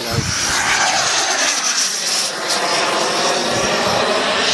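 Turbine engines of a radio-control model jet running at take-off power: a steady jet roar with a high turbine whine. Its pitch dips and rises again as the jet climbs out past the listener.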